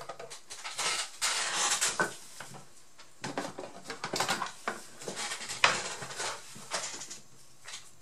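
Light clicking and clattering of small hard tools and parts being handled on a workbench, with brief rustling between the clicks.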